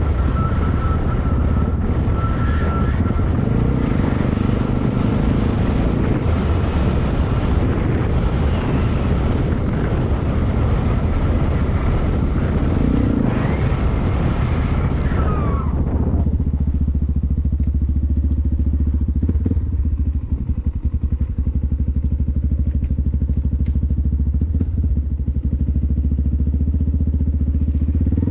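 Yamaha XT225 single-cylinder four-stroke engine running steadily under way, with a rushing noise over it that drops away about halfway through, leaving the low engine note on its own.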